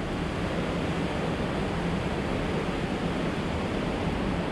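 Steady rushing noise from a moving bicycle on a wet road: airflow over the handlebar camera's microphone mixed with tyres on wet asphalt, even throughout.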